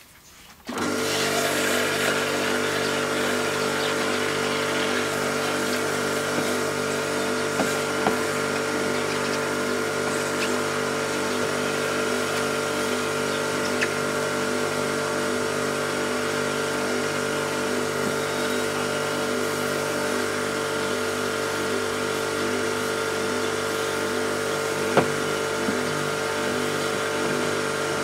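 Ruris Pro Power Jet 1900 pressure washer's induction motor and pump starting suddenly about a second in, then running steadily with a hum and a regular low pulsing, over the hiss of water spraying from a rotating brush attachment.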